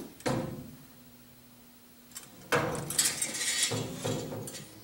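Handling noise of a plastic coolant-filter canister and bent stainless steel wire hooks being hung on a mill's sheet-metal enclosure. A knock just after the start, then, from about halfway through, some two seconds of scraping and rattling as the hooks are worked into place.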